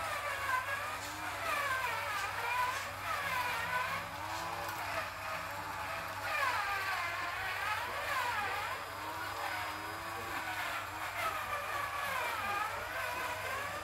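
The cordless-screwdriver motor of a 1/16-scale RC truck whines as the truck crawls over rocks. Its pitch rises and falls again and again with the throttle and the load.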